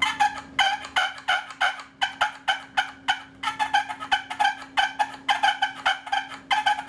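Handmade oak push-button turkey call with both halves worked together, giving a rapid, uneven run of short clucks and purrs, several a second: a fighting-purr sequence imitating turkeys squabbling.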